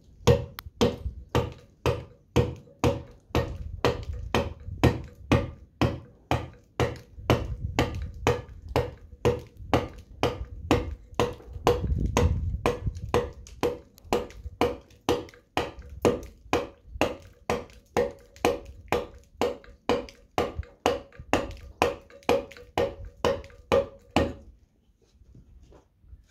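Round mallet striking a small steel chisel into a stone panel, a steady run of sharp taps about two a second, each with a short ring, stopping shortly before the end. These are the finishing cuts on carved lettering, done with smaller chisels for a more accurate finish.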